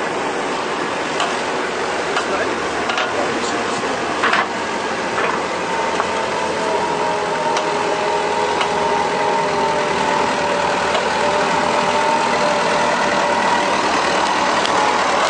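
Massey Ferguson tractor engine running as the tractor drives closer, growing gradually louder from about six seconds in. Scattered clicks and knocks in the first few seconds.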